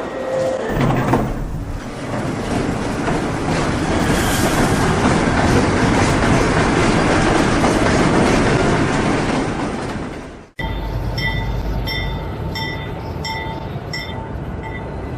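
Subway train running past on the rails, a loud steady rumble and rattle for about ten seconds. It cuts off abruptly and is replaced by quieter train noise with a high ringing tone repeating about twice a second.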